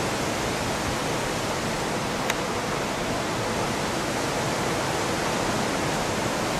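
Hurricane wind and rain, a steady rushing noise through the trees, with one brief click about two seconds in.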